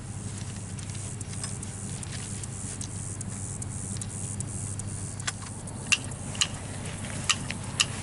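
A steady low hum throughout. From about five seconds in come several sharp, irregular clicks as hands work the chicken wire on the coop's frame.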